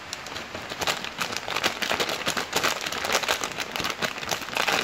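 Plastic spice packet crinkling as it is shaken and tipped over a cooking pot, a dense run of rapid crackles that picks up about half a second in.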